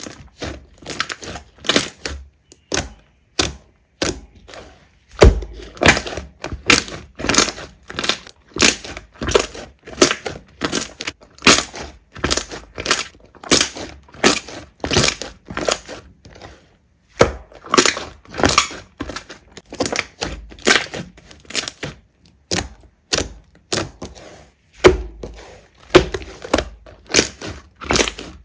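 Slime being squeezed and pressed by hand, giving a run of sharp crackling pops and clicks, about two a second, with a few brief pauses.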